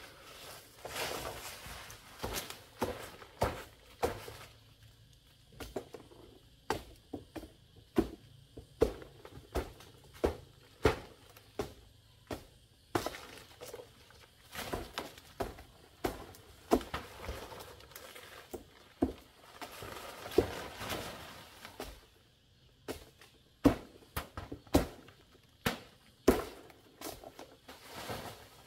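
Irregular sharp knocks and cracks, some with a short ring, mixed with stretches of dry rustling.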